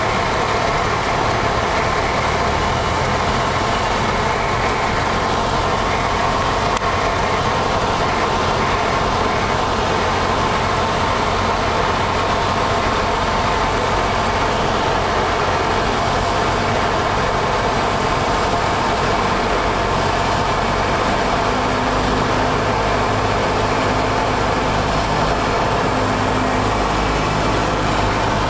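Cessna 172's piston engine and propeller droning steadily, heard inside the cabin on approach. The engine's tone shifts once about three-quarters of the way through.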